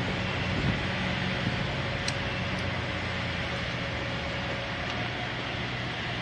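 Steady low drone of an idling engine, with a couple of faint clicks about two seconds in.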